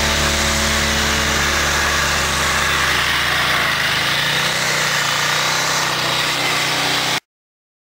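ATV engine running steadily under way, mixed with ride and wind noise; it cuts off abruptly a little after seven seconds.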